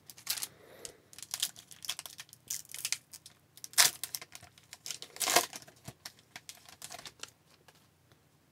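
Foil wrapper of a hockey card pack crinkling and being torn open by hand: a run of irregular crackles and rips, the two loudest tears a little under four seconds in and again past five seconds, settling down near the end.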